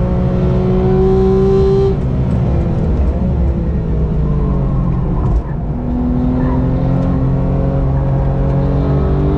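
Car engine running hard on a race circuit. Its pitch holds steady, drops about two seconds in, then climbs slowly again through the second half as it pulls.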